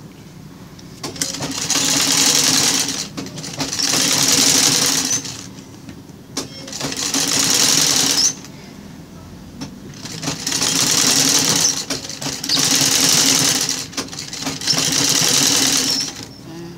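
Old black sewing machine stitching fabric scraps onto a sackcloth rug base, running in six short bursts of about one and a half to two seconds with brief pauses between, as the fabric is repositioned under the foot.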